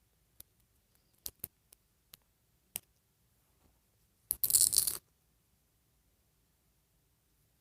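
Small hard plastic doll hair pieces being handled, with a few scattered light clicks and then a brief clatter of about half a second a little past the middle.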